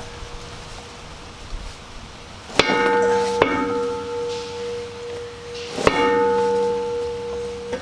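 Steel tractor wheel rim knocked three times, about two and a half seconds in, a second later and near six seconds. Each knock leaves a long bell-like metallic ring.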